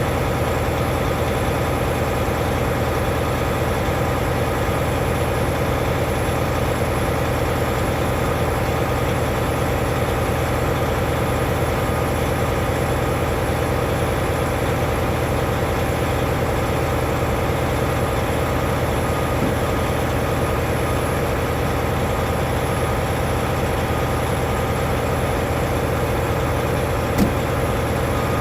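Semi truck's diesel engine idling steadily, with one sharp click near the end.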